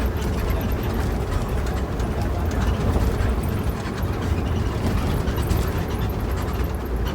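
Intercity bus on the move, heard from inside the cabin: a steady low rumble of engine and road noise.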